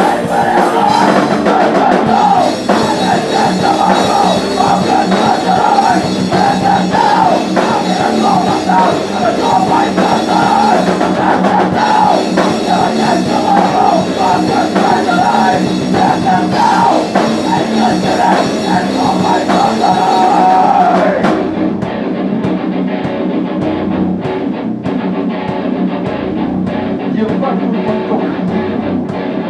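A rock band playing loud live music on drum kit and guitars. About 21 seconds in the sound thins to a sparser passage where single drum hits stand out.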